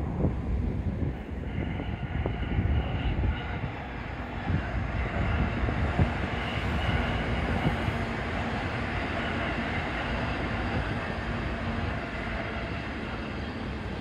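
Orange-striped electric commuter train running past along the tracks: a steady rumble and rail noise that builds over the first couple of seconds, holds through the middle and eases off near the end.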